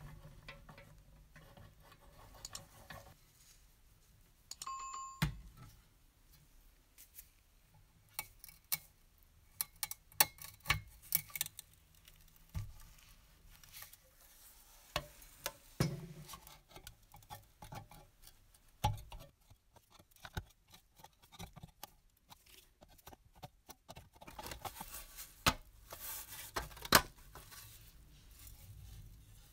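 Scattered metallic clicks, taps and knocks from handling the rusty parts of a circa-1950 JC Unis toy steam engine. A short beep comes about five seconds in, and there is a stretch of scraping near the end.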